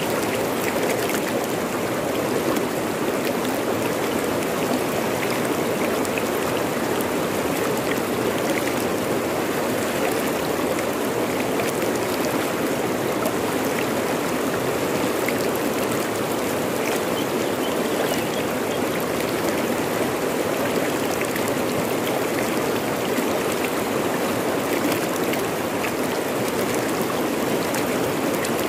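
Fast-flowing river rushing and splashing over rocks, a steady full rush of water.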